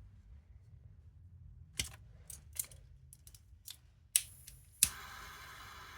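A run of short, sharp clicks and clacks from small tools or parts being handled on a workbench. A louder clack comes near the end, followed by a steady hiss.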